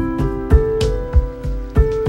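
Background music: sustained keyboard notes over a steady drum beat of about three beats a second.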